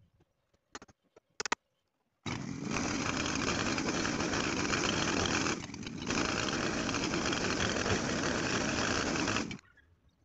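Two-stroke chainsaw running at full throttle while cutting through wooden boards, easing off briefly midway and then cutting off near the end. Before it starts, a couple of sharp hammer knocks on the wooden frame.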